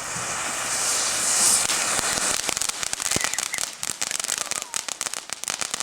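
Consumer ground fountain firework spraying with a steady hiss that gives way, about two and a half seconds in, to rapid, dense crackling.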